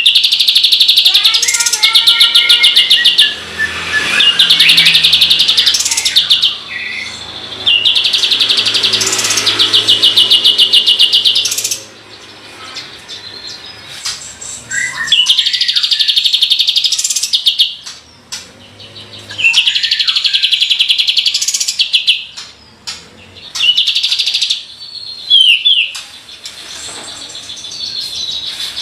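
Kapas tembak bird singing in loud, rapid rattling trills, each burst lasting one to three seconds and repeated after short pauses.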